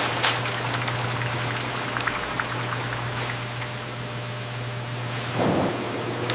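Hot oil sizzling and crackling in an industrial deep fryer as sweet potato slices fry, over a steady low machine hum.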